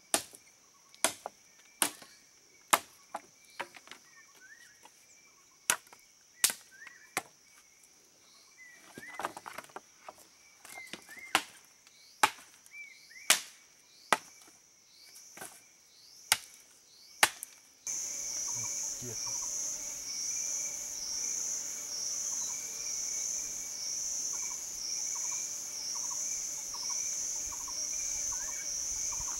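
Machete chopping wood: sharp, irregular strikes about once a second, stopping about 18 seconds in. After that comes a steady, pulsing high-pitched insect drone.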